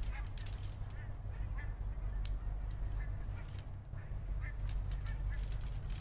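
A low wind rumble on the microphone, with repeated short high bird calls and scattered light clicks over it.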